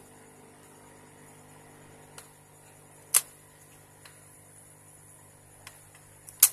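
Sharp plastic snaps and clicks as the Dell Inspiron N4050 laptop keyboard's retaining clips are pried loose along its top edge: two loud snaps, about three seconds in and near the end, with a few fainter clicks between.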